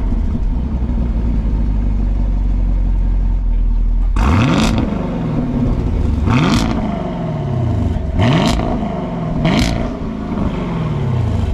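Chevrolet Camaro SS 1LE's 6.2-litre naturally aspirated LT1 V8 through its factory NPP dual-mode exhaust with the valves held open in sport mode. It idles for about four seconds, then is revved four times in quick blips, each rising sharply and falling back to idle; the exhaust is described as very potent.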